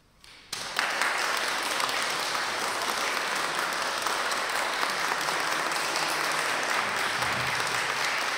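Audience applauding: a few scattered claps, then full, steady applause within the first second.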